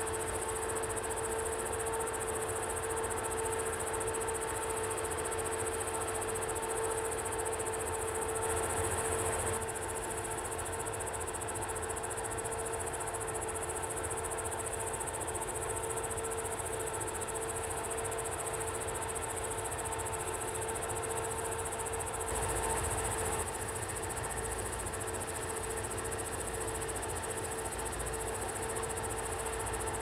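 Crickets chirring in a continuous high band over the steady hum of combine harvesters working the field. The sound swells slightly twice, about 9 and 23 seconds in.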